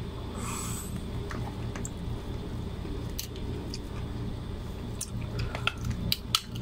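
Cooked crab being pulled apart and picked by hand: small cracks, clicks and wet squishes of shell and meat, coming thicker near the end, over a steady low background hum.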